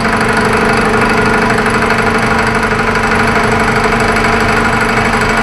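Vertical milling machine running steadily, its 3/4-inch two-flute end mill cutting an aluminium block to true up its surfaces.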